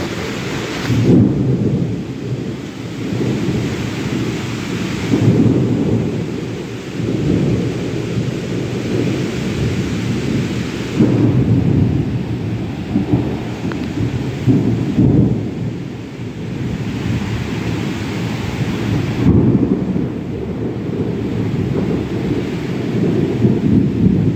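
Heavy rain pouring in a strong, gusting storm, with deep rumbling surges that rise and fall every few seconds over a steady hiss of rain.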